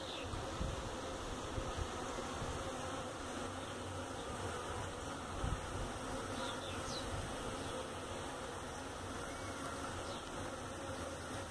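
Honeybees buzzing steadily at the entrance of a wooden hive, with a few soft low bumps in the first half.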